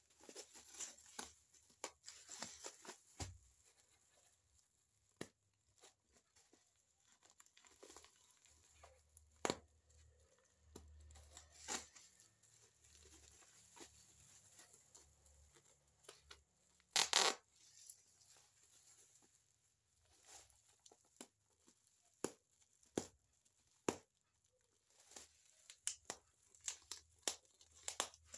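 Black plastic parcel wrapping and packing tape being torn and crinkled by hand, as scattered crackles and short rips. The loudest rip comes about 17 seconds in.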